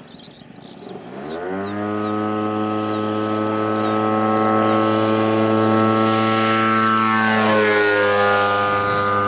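Model tow plane's engine throttling up from low with a rising whine, then running steadily at full power for the aerotow takeoff. Near the end its pitch drops as the plane passes by.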